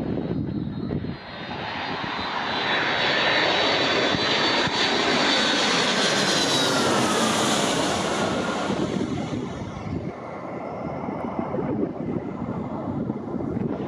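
Delta Boeing 757-200 twin-engine jet on landing approach, its engine roar building as it nears, then passing with a high whine that falls in pitch, and fading away about ten seconds in.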